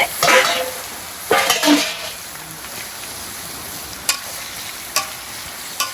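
Food frying and sizzling steadily in a pan while it is stirred, with a few louder scrapes near the start and three sharp clicks of the utensil against the pan later on.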